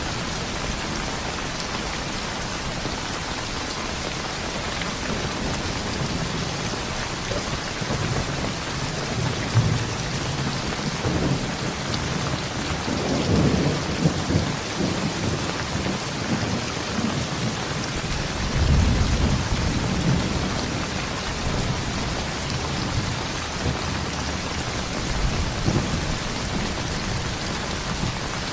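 Heavy rain pouring steadily, with thunder rolling several times: low rumbles swelling about a third of the way in, around the middle, and again about two-thirds through, with a few sharp cracks.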